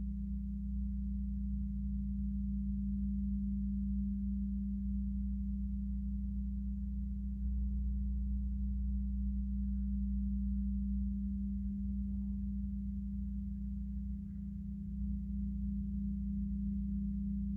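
Sustained drone of gong-bath instruments: one deep, steady tone held without any strikes, with a low rumble beneath it.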